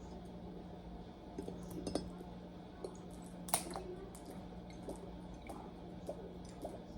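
Light kitchen handling: scattered small clicks and taps of glassware and utensils with some wet, liquid sounds, the sharpest click about halfway through. A steady low hum runs underneath.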